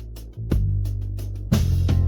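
Instrumental electric blues music: sustained bass notes under a drum kit keeping time with steady cymbal strikes and heavier drum hits about half a second in and near the end, with guitar.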